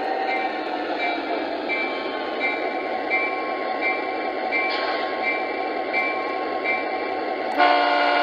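Lionel O-gauge Conrail SD80 model diesel locomotive running along its track, a steady rumble of motor and wheels with a light tick about every three-quarters of a second. A loud horn blast starts near the end.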